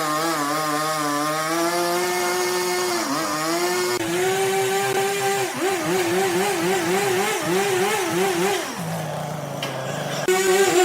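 A powered saw or wood-cutting machine running loud and pitched, its pitch dipping and wavering as it works, with abrupt changes where clips are joined.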